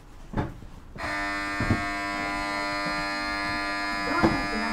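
A steady electric departure buzzer starts abruptly about a second in and sounds without a break, signalling that the train is about to leave. A few dull knocks come over it, the loudest near the end.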